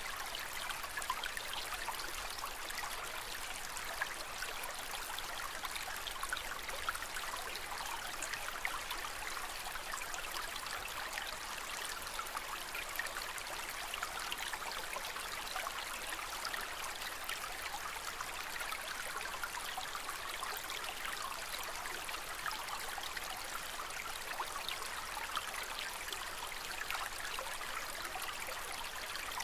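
Aquarium water trickling and splashing in a steady, even stream of small bubbly flecks.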